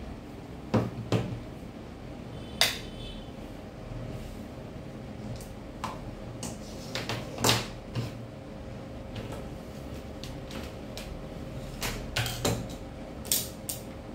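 Scattered sharp clicks and knocks of a plastic battery charger, its clamp leads and multimeter probes being handled and set down on a wooden table.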